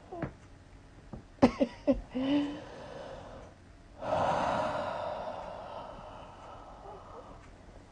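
A few quick cracks of a back being popped about a second and a half in, followed by a short vocal gasp. About four seconds in comes a long breath out that fades over a few seconds.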